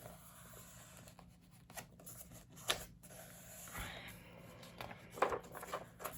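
Faint rustling of old book pages being handled and turned, with a few sharper paper crinkles.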